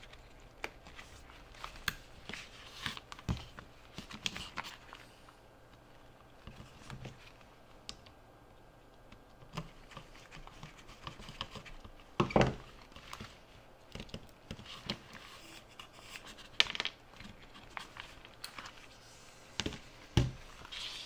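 Gloved hands handling a tape-recorder circuit board and lifting off its plastic switch block: scattered clicks, taps and scrapes of plastic and metal parts. Several louder knocks stand out, the loudest about twelve seconds in.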